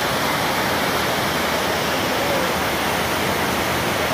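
Mountain stream rushing fast over rocks and boulders, a steady rush of white water.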